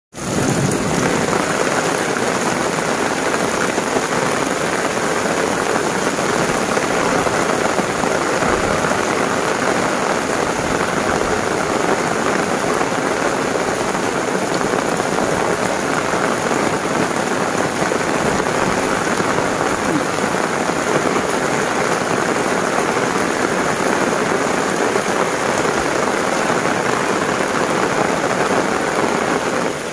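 Heavy rain pouring down steadily on a paved village lane, a dense even hiss of rain on the road and running water, fading in at the very start.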